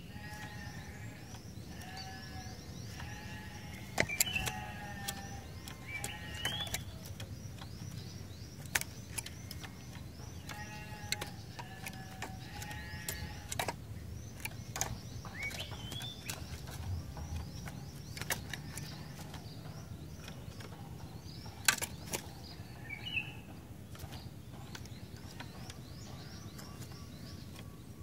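Cinereous tit (glatik batu) calling: short bursts of repeated pitched notes in quick phrases, mostly in the first half, with a couple of rising whistled notes around the middle. Scattered sharp clicks and a faint steady hum run underneath.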